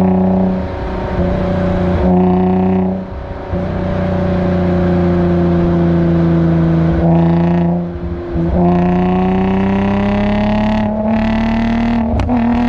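Infiniti G35's 3.5-litre V6 heard at the tailpipes of its Motordyne Shockwave exhaust, running steadily at part throttle. The note dips briefly twice as the throttle is eased, then climbs slowly. A few sharp cracks near the end come from the tune's pops-and-bangs feature.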